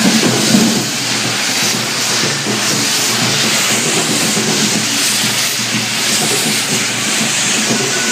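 Loud, steady hiss of correfoc fireworks: several hand-held spark fountains (carretilles) burning at once on the devils' poles.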